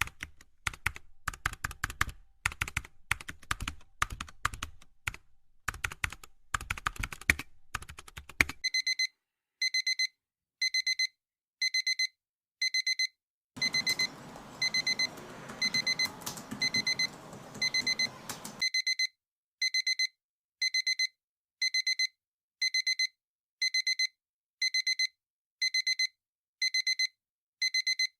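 Quick clicking of typing on a keyboard for the first several seconds, then an electronic alarm beeping, one high beep roughly every three quarters of a second. A soft hiss sits under the beeps for about five seconds midway.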